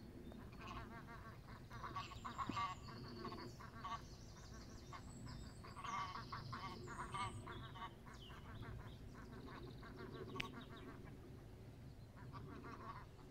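Greylag geese calling, a faint run of repeated honks and cackles that comes in bouts and is busiest a couple of seconds in and again around the middle.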